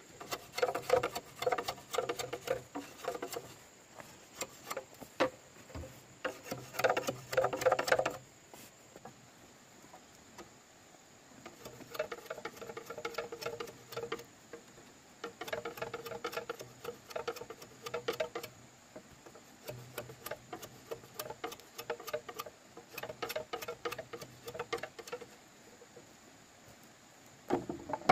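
Bamboo being worked with a hand tool: spells of rapid scratchy strokes with a ringing tone, separated by pauses.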